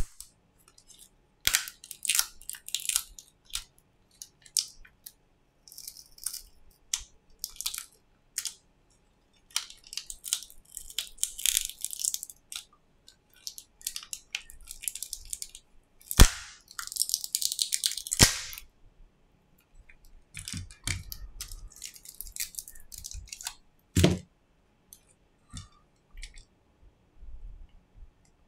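Hands handling a disassembled smartphone's motherboard and frame: scattered small clicks, taps and short scraping noises, with a few sharper clicks, the loudest about sixteen seconds in.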